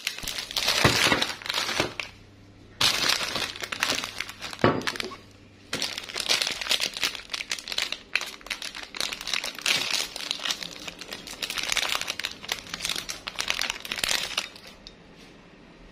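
Plastic ice-cream bar wrapper crinkling as it is handled and torn open, in long stretches of crackling with two short pauses, stopping near the end.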